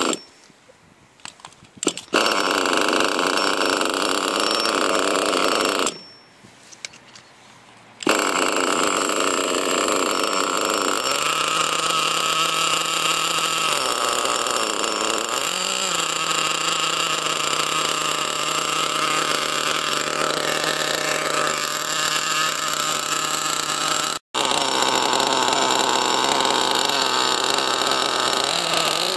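A 1:8-scale nitro RC buggy's glow engine being started: it runs for a few seconds and stops, then catches again about eight seconds in and keeps idling steadily, with a couple of short throttle blips. The engine was pre-warmed with a gel heat pack for starting on a cold day.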